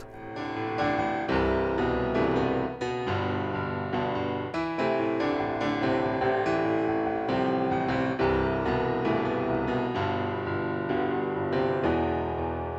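Background music: a gentle piano melody, notes struck one after another at an even pace.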